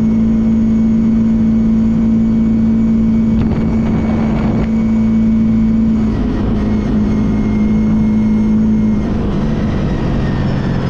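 CFMoto ATV engine pulling at a steady cruising throttle. Its pitch dips a little about six seconds in, then drops further near the end as the throttle is eased off.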